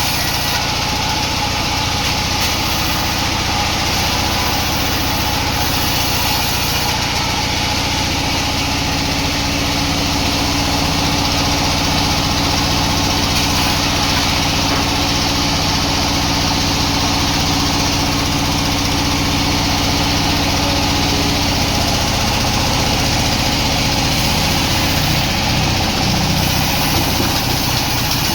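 Sawmill machinery running: a steady motor hum with some slow shifts in pitch.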